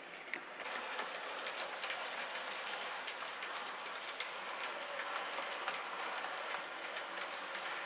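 A Bachmann OO gauge Class 20 model diesel hauling goods wagons runs along model railway track: a steady rattling hiss of wheels on rail, dotted with quick clicks over the rail joints. It gets louder about a second in as the train draws near.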